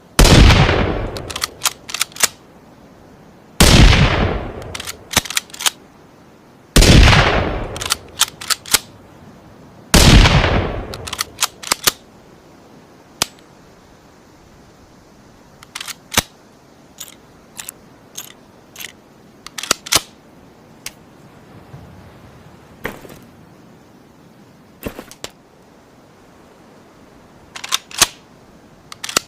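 Four rifle shots about three seconds apart, each with a short fading tail and followed by a quick run of sharp metallic clicks as the bolt is worked. After the fourth shot there are no more shots, only scattered clicks and clacks of the bolt-action rifle's mechanism.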